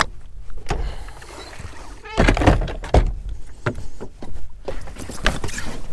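Irregular knocks and thuds on a fishing boat's deck and hull as a person moves about and handles gear, with a few sharper knocks about two, three and five seconds in over a low rumble.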